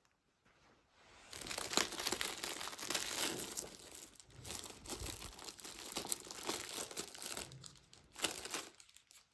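Clear plastic packaging film crinkling and rustling in irregular crackles, starting about a second in, with the loudest crackle near the end.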